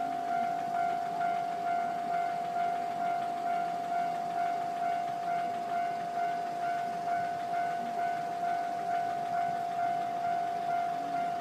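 Level crossing warning bell ringing steadily: an electronic ding repeating evenly about one and a half times a second over a constant tone.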